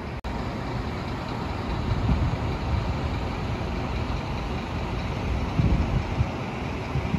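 Steady low rumble of a large engine running, with outdoor noise around it; it swells about two seconds in and again near the end, with a brief break just after the start.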